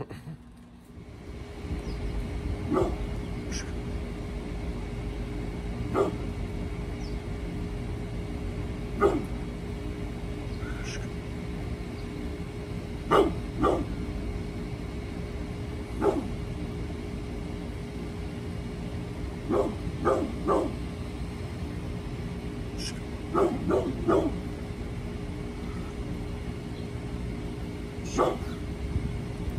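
Brindle pit bull barking: single barks every few seconds, with a few quick runs of two or three, over a steady background hum.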